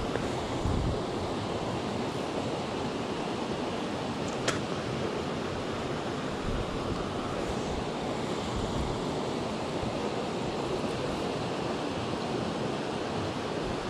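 Steady rushing of a small mountain stream running over a shallow riffle into a pool, with one faint click about four and a half seconds in.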